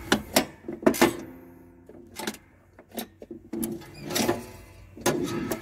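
Husqvarna YTH22V46 lawn tractor's brake pedal linkage being worked: metal clicks and clanks as the brake rod, freshly pinned back in place, shifts through the steel frame. The clicks come several in the first second, again about two and three seconds in, and near the end.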